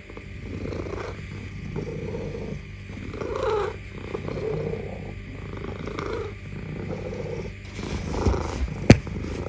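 Domestic ginger cat purring close up, a low continuous purr pulsing about once a second. A sharp click near the end.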